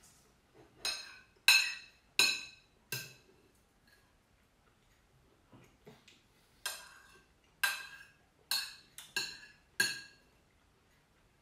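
Metal spoon clinking against a ceramic soup bowl while eating soup: about ten sharp, ringing clinks, four in the first three seconds, then a pause, then six more in quick succession.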